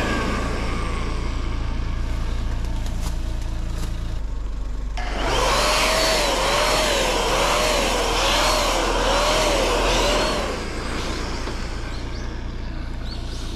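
Small handheld electric paint sprayer running with a hiss of spray over a steady low hum. It stops for about a second roughly four seconds in, then runs again, and goes quieter near the end.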